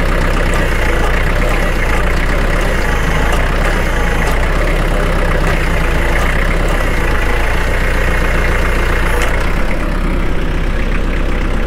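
Kubota MX4700 tractor's four-cylinder diesel engine running steadily.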